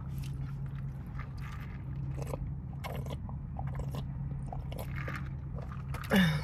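Close-miked chewing and crunching of fried food, in irregular short bites, over a steady low hum. A brief vocal sound falling in pitch comes near the end and is the loudest thing.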